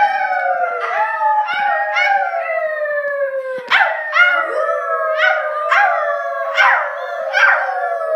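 A chorus of wolf-pack howls: several long howls overlapping, each sliding slowly down in pitch, with new howls joining about once a second.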